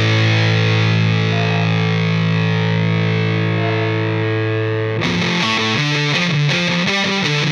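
Rock music with a distorted electric guitar: a long held chord, then from about five seconds in a choppy rhythmic riff.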